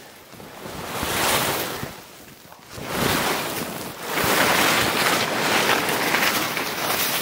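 Heavy Atuk Cree canvas tent dragged by its peak over snow, the fabric rustling and sliding in surges: a short one about a second in, then longer, louder ones from about three seconds on.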